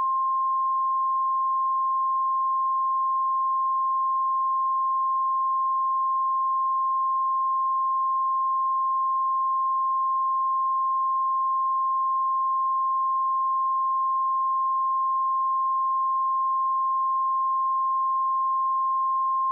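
A pure 1058 Hz sine-wave test tone, held steady at one pitch and level.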